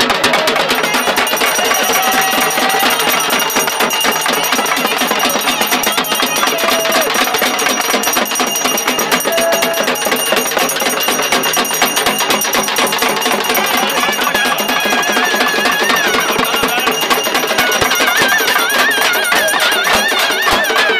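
Fast, dense beating on parai (thappu) frame drums struck with sticks, a continuous driving rhythm of traditional Tamil festival drumming. A wavering reed-like melody joins in during the second half.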